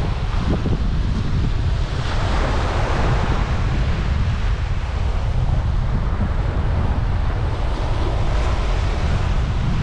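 Surf washing steadily onto a sandy beach, with wind buffeting the microphone as a low rumble.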